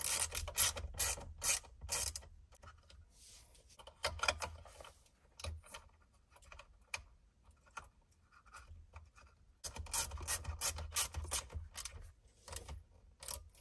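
A plastic part being worked out of a car's rear centre console by hand: quick runs of clicks and rubbing in three spells, quieter in between.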